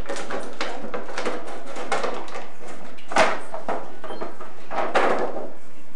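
Plastic bag rustling and crinkling as it is rummaged through for ornaments, in short irregular bursts, with two louder crinkles about three and five seconds in.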